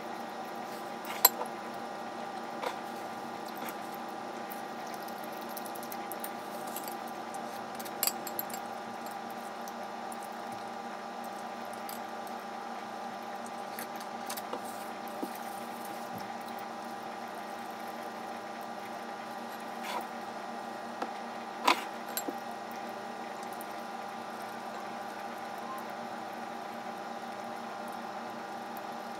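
Quiet eating sounds: chopsticks handling food in a glass bowl, with a few sharp clicks of the wooden chopsticks against the glass, the loudest about a second in and again about three quarters of the way through. A steady electrical hum runs underneath.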